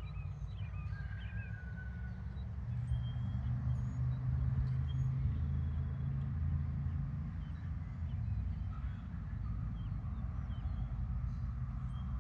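Outdoor field ambience: a steady low rumble with faint, scattered bird chirps over it.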